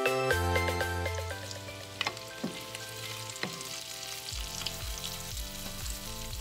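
Pork and chicken pieces frying in a nonstick skillet, sizzling as they are browned to a slight crunch, stirred with a wooden spatula that knocks against the pan a few times. Background music with steady notes is loud for about the first second, then carries on faintly under the sizzle.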